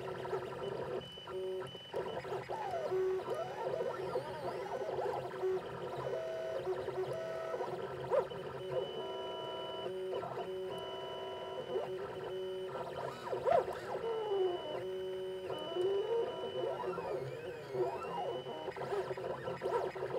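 Weedo Tina2 desktop 3D printer running a print: its stepper motors whine in tones that jump from pitch to pitch every fraction of a second, with short glides up and down.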